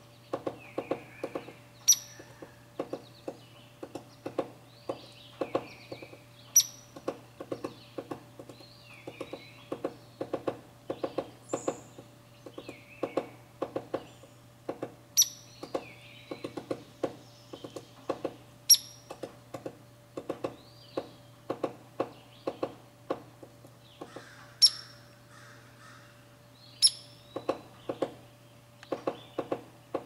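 Hairy woodpecker pecking and chiselling at wooden trim, several taps a second in irregular runs, as it digs into carpenter bee galleries for the larvae. Six sharp, high-pitched chip notes stand out as the loudest sounds, and faint birdsong sits in the background.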